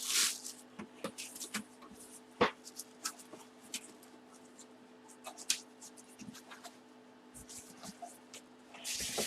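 Hands handling helmet-box packaging: scattered light rustles, taps and clicks, with one louder rustle at the start, over a faint steady low hum.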